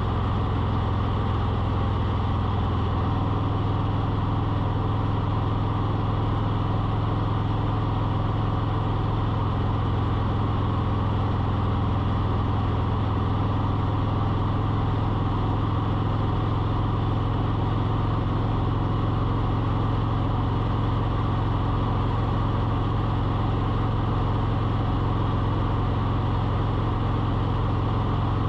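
A motor running steadily with a low, even hum, its pitch shifting slightly about three seconds in.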